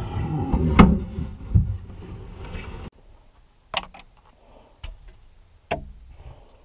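Heavy thumps, bumps and rustling of a person hauling himself up through a ceiling hatch, with one sharp knock under a second in. After a sudden drop in level about three seconds in, three sharp clicks about a second apart come from thin white rods being handled.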